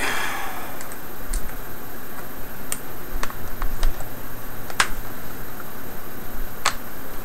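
Scattered light clicks and taps, about half a dozen spread over several seconds, the sharpest a little past the middle: small screws and a screwdriver being handled in a plastic tool case.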